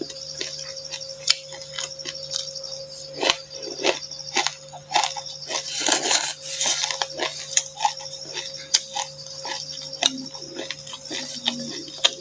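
Close-up chewing and crunching of dry chilli seeds and buckwheat: a fast, irregular run of sharp crackles and clicks, with a longer crunching stretch about six seconds in, over a steady low hum.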